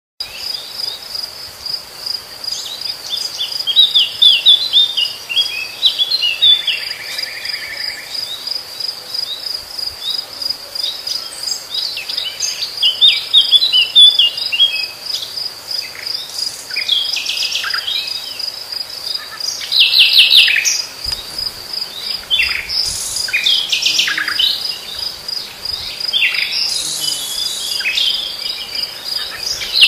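Crickets chirping in a steady, high, pulsing trill, while a common nightingale sings varied phrases of rapid notes every few seconds, including a fast run of repeated notes.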